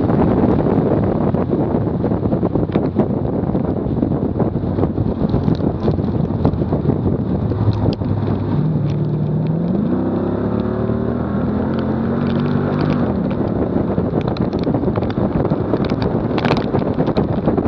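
Heavy wind buffeting on a bumper-mounted camera at track speed. About halfway through a car's engine note comes up under the wind, rising in pitch and then holding steady for a few seconds before it drops away.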